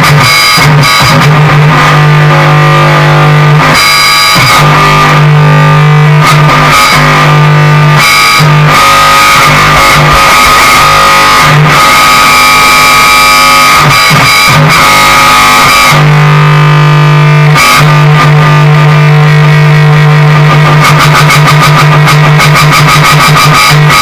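Noise music from a bass guitar run through a distortion pedal into a small guitar amp: a loud, heavily distorted droning note that cuts in and out, with a noisier stretch about two-thirds of the way in, turning into a rapid stutter near the end.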